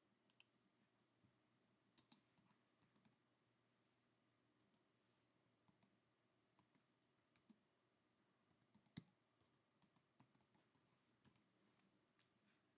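Faint, irregular clicking of a computer mouse and keyboard against near silence, about a dozen clicks, the sharpest a couple of seconds in and again about nine seconds in.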